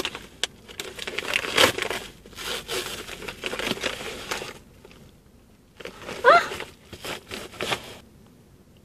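Paper mailing package being torn open and crinkled by hand, a dense rustling and tearing with sharp crackles that stops about four and a half seconds in. A short rising vocal 'hm' from a woman follows a couple of seconds later, then a few faint clicks.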